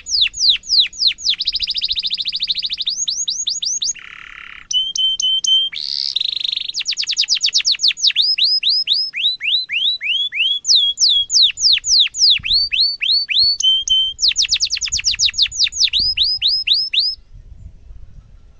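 Domestic canary singing a long song: strings of quick, sharply falling 'cuit' notes alternating with fast rolling trills. The song stops near the end.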